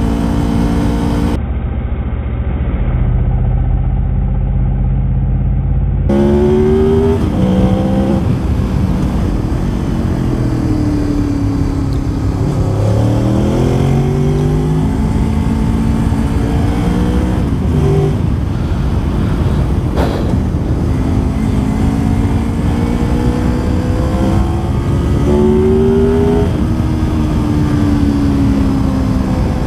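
Motorcycle engine on the move, its note rising and falling as the rider works through the revs and gears, over steady wind and road noise. For a few seconds near the start the sound is duller and muffled.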